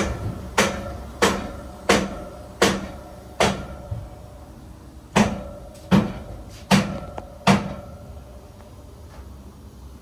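Ten sharp knocks that each ring briefly, about one every 0.7 seconds: a run of six, a pause of about a second and a half, then four more.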